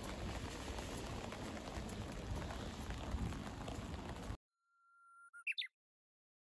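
Steady noisy outdoor ambience, a hiss with a low rumble, that cuts off abruptly about four seconds in. In the silence that follows, a short electronic tone fades in and then chirps quickly upward, like an edited-in sound effect.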